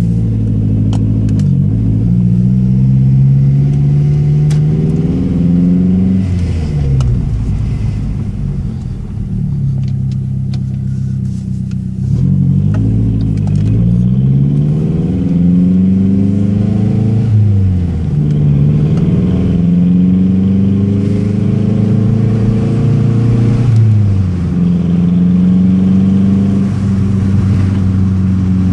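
Mazdaspeed3 turbocharged four-cylinder engine through a muffler-deleted side-exit exhaust, heard from inside the cabin: a loud drone. Its pitch climbs under acceleration and drops back sharply at each gear change, about five times.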